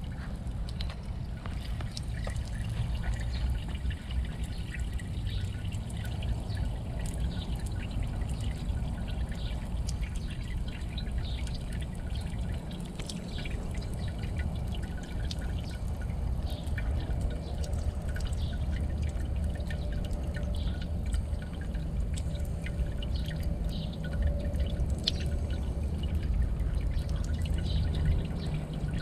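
A thin stream of water from a drinking-fountain tap trickling and splashing into a stone basin while a cat laps at the stream with its tongue, giving many small wet ticks. A steady low rumble runs underneath.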